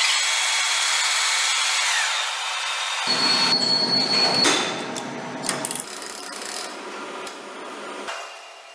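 Metal lathe turning a metal workpiece, a steady hiss from the cutting tool and spinning chuck. About three seconds in it gives way to irregular metallic clicks and knocks as a chuck key is turned in the jaws of a stopped four-jaw chuck.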